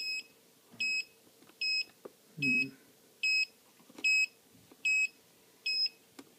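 Turnigy 9X radio transmitter's warning beeper sounding short, high beeps about every 0.8 s. This is its switch-error alarm, given because a switch is not in its required start-up position.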